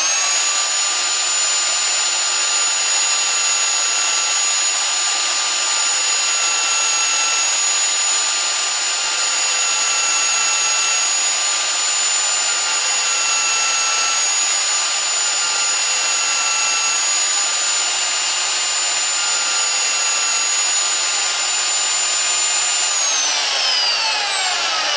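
Electric drill clamped to a workbench, running steadily at speed with a wire wheel brush in its chuck, a coin's edge held to the spinning bristles to take off the burr; a steady high whine sits over the brushing hiss. About 23 seconds in the drill is switched off and its pitch falls as it spins down.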